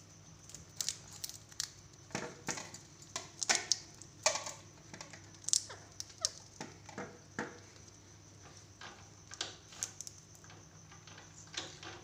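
Rose-ringed parakeet cracking and crunching a peanut in its beak: a run of irregular sharp cracks and clicks, thickest in the first half and again near the end.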